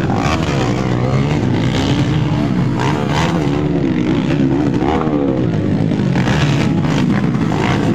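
Motocross motorcycle engines revving up and falling back over and over as riders take the dirt jumps, with spectators' voices mixed in.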